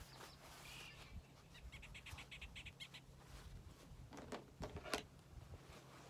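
Faint rustling of cloth pieces being handled, with a few sharper strokes about four to five seconds in. A short rapid trill of about ten notes a second, a bird, comes near the middle over a low steady hum.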